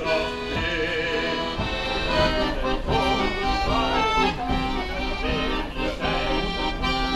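Accordion playing a melody over a low held note.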